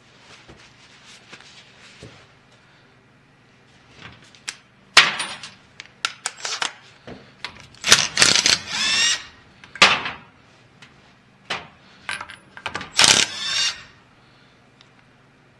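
Cordless power driver run in short bursts, backing bolts out of a power steering pump, with its motor whirring up and down. Metal parts clink on a metal drain tray. Light handling clicks come first, and the loud tool bursts start about five seconds in.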